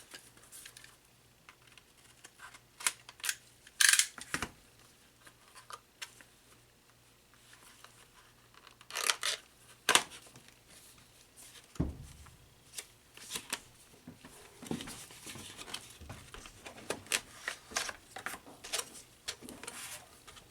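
An SSD's retail box and packaging being unsealed and opened by hand: scattered clicks, taps, scrapes and tearing, with a few louder bursts a few seconds in and around the middle.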